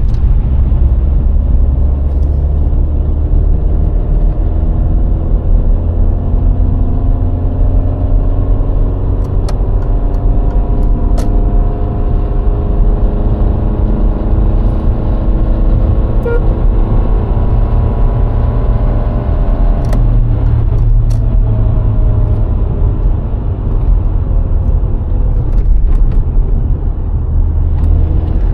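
VW Golf IV 1.6 on the move: a steady low rumble of road and wind noise, with the engine's hum slowly rising in pitch as the car gathers speed, then breaking off and dropping lower about two-thirds of the way through.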